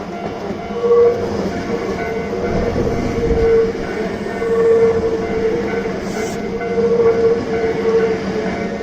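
Hankyu electric train running past, with a rumble of wheels on track that is heaviest a few seconds in. A steady pitched tone swells and fades over it every second or two.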